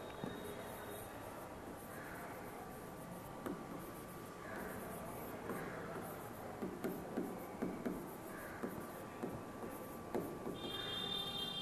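Faint scratching and tapping of a stylus writing on the glass screen of an interactive display, in a string of short strokes that come thickest in the middle and later part.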